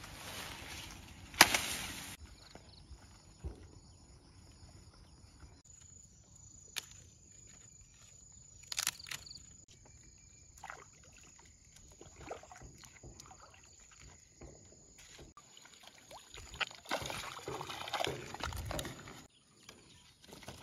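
Reed leaves rustling as they are cut by hand, with a sharp snap about a second and a half in, then scattered faint knocks and water sloshing at the edge of a bamboo raft; a thin steady high tone runs underneath from about six seconds in.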